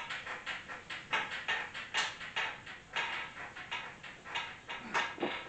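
A whiteboard being wiped clean, in quick back-and-forth strokes that rub and squeak against the board, about three to four a second.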